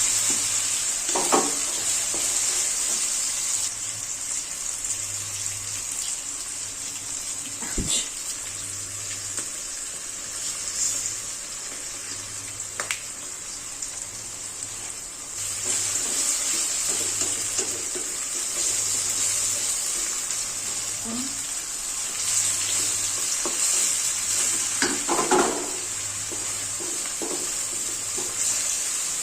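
Food sizzling in a frying pan, a steady hiss that eases off a few seconds in and grows again past the middle, with a few knocks of a utensil against the pan.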